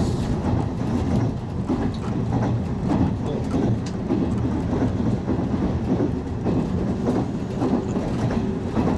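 Running noise heard inside a Toyama Chihō Railway 10030 series electric train, the former Keihan 3000 series, moving at speed: a steady rumble of wheels on rails with scattered faint clicks.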